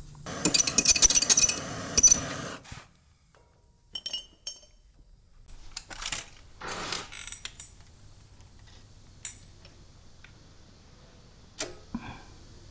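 Metal hand tools and small metal fittings clattering and clinking as they are handled. A loud, ringing jangle lasts about two seconds at the start, followed by scattered single clinks.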